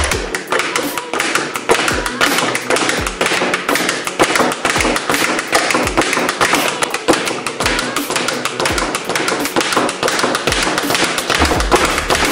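A yellow Title Boxing 5x8 speed bag being punched in a fast, continuous rhythm, rebounding off the platform in a rapid run of taps several times a second.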